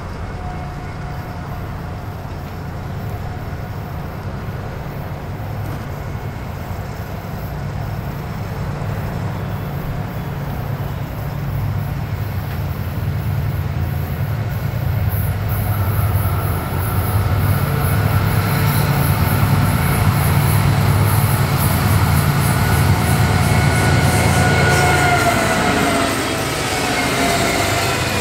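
Florida East Coast Railway freight train's GE ES44C4 diesel locomotives approaching and passing: a low engine rumble grows steadily louder, and in the last few seconds a whine drops in pitch as the lead units go by.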